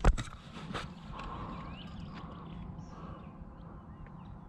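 A sharp knock against the blind at the start and a lighter one just under a second in, then faint, short high calls of incoming geese, a few scattered through the rest.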